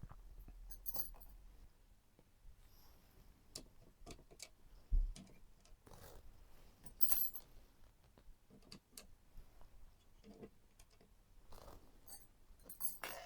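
Scattered light clicks, taps and short metallic rattles of computer hardware being handled during assembly, with a dull thump about five seconds in.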